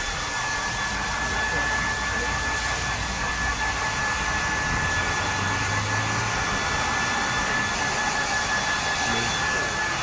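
Handheld hair dryer blowing steadily on a dog's coat: a continuous rush of air with a thin, steady high whine from its motor.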